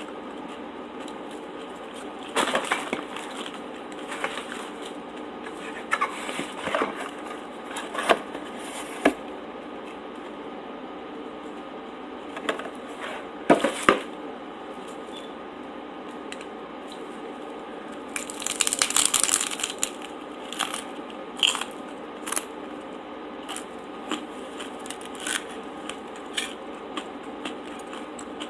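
Close-miked eating: irregular crunchy bites and chewing of a jackfruit crab-style cake with a crisp taco shell, with sharp clicks and short crunches. The longest crunch comes about two thirds of the way through, over a steady faint hum.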